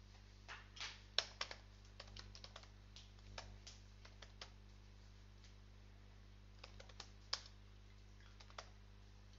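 Typing on a computer keyboard: two runs of quick keystroke clicks with a pause of about two seconds between them, over a faint steady low hum.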